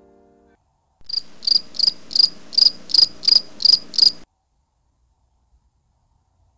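Cricket-chirping sound effect, the comic 'crickets' gag for an awkward silence: nine evenly spaced high chirps, about three a second, starting about a second in and cutting off abruptly about three seconds later.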